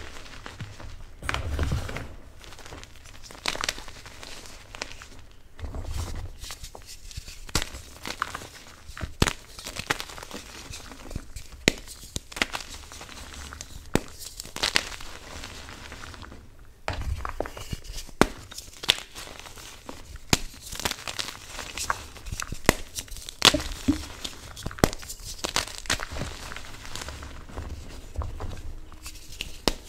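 BSN Plain Jane gym chalk blocks and powder crushed and squeezed by hand in a bowl: a continuous crunching and crumbling with many sharp, irregular snaps as pieces break, and now and then a low thud.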